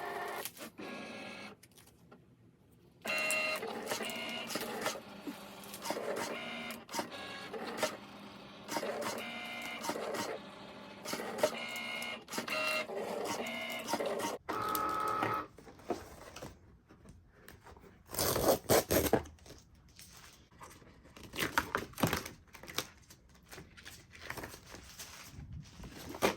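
Cricut cutting machine running a cut, its stepper motors whirring in short runs that change pitch as the carriage and mat move back and forth. About halfway through the motor runs stop, and irregular clicks and handling noises follow.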